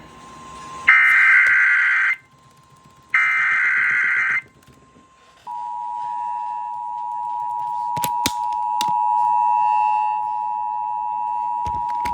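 Emergency Alert System broadcast over radio: the screeching digital header bursts of the alert's data code, each a little over a second long with short gaps between them, then the steady two-tone attention signal starting about five seconds in and holding. A few sharp clicks cut through the tone near the end. These tones announce the tornado warning that follows.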